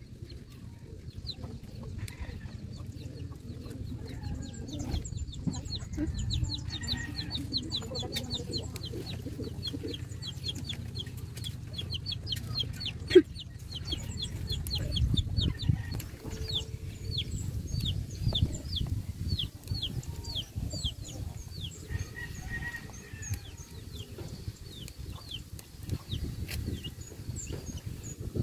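Birds chirping in long runs of short, high, falling notes, several a second, over a steady low rustling noise. A single sharp knock about 13 seconds in.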